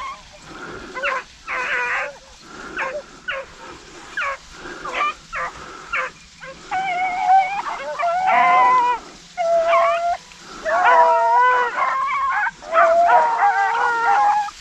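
A pack of rabbit hounds giving tongue as they run a rabbit: short barks at first, then from about halfway in several dogs bawling together in long, drawn-out howls at different pitches.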